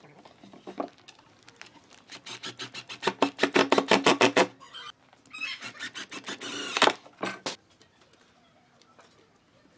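A cordless impact driver drives two wood screws into a pine box corner, one after the other. Each run lasts about two seconds of motor sound with fast, even clicking impacts, and the second ends in a sharp click. There are a few light handling clicks before and after.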